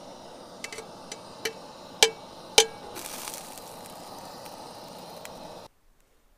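Metal cookware clinking: a pan and its lid knocking against a blue enamel plate while fajitas are served, several light taps, then two loud ringing clanks about two seconds in, followed by a brief scraping hiss. A steady rushing noise runs underneath and cuts off abruptly near the end.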